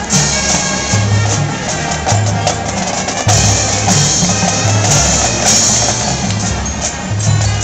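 Marching band playing: brass holding sustained chords over low sousaphone notes, with the drumline's bass drums and snares keeping a steady beat.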